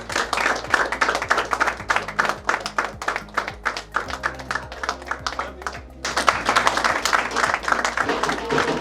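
A group of people clapping in applause over background music. About six seconds in, the clapping becomes louder and denser.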